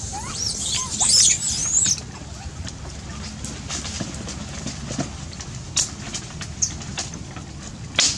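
Young long-tailed macaques giving high, wavering squeals for about the first two seconds. After that come scuffling and rustling on dry leaves and sticks, with a few sharp clicks, a brief squeak about two-thirds of the way in, and one louder click near the end.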